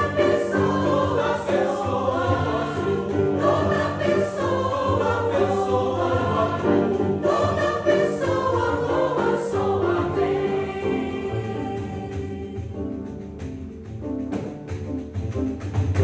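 Mixed choir singing in several voices with grand piano accompaniment, growing quieter over the last few seconds as the song draws to its close.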